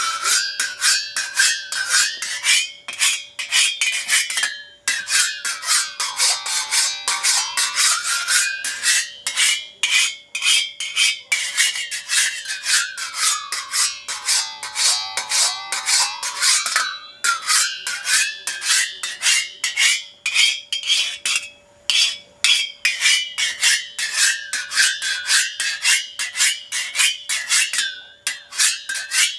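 Singing saw, a toothed hand-saw blade played as an instrument. It is sounded by a quick run of repeated strokes, about four or five a second. Its ringing pitch slides slowly up and down in wide swoops as the blade is bent, with two brief pauses.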